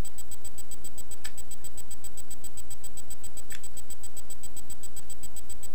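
Two sharp metallic clicks from a Zippo lighter's hinged lid being snapped open and shut, about two seconds apart, over a steady electrical hum.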